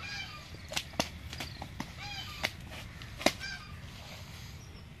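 Large carp flopping inside a net on brick paving, giving several sharp wet slaps, the loudest about three seconds in. A bird calls in short repeated notes every second or two.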